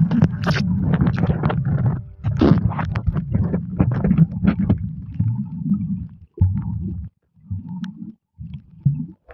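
Muffled underwater rumble and sloshing of water against a submerged camera, with bubbles crackling and popping over it. About six seconds in it breaks up into short separate gushes with gaps between.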